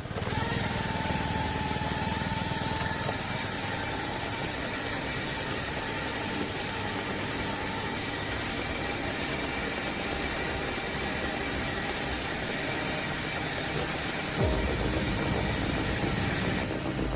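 Homemade firewood processor running, a steady engine-driven machine noise with a thin whine through the first half. About fourteen seconds in, a tone sweeps quickly down in pitch and the sound gets slightly louder.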